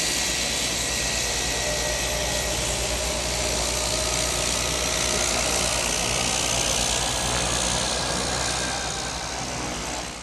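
Cessna 208B Grand Caravan EX's Pratt & Whitney PT6A-140 turboprop running at taxi power: a steady hissing whine with a thin high tone over a low hum. It fades out near the end.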